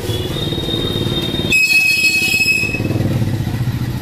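Smoke tape being peeled off a motorcycle fuel tank, squealing high as it comes away from the gummy adhesive: first one squeal, then a lower one with a sharper edge from about a second and a half in, ending around two and a half seconds in. An engine runs steadily underneath.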